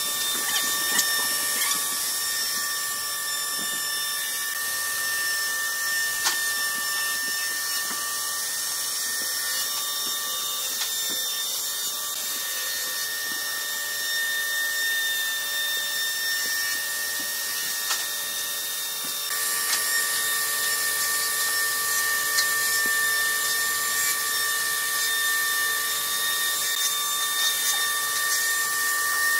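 Electric plunge router running at full speed with a steady high whine, its bit cutting grooves into a wooden panel. The cutting noise grows a little louder about two-thirds of the way through.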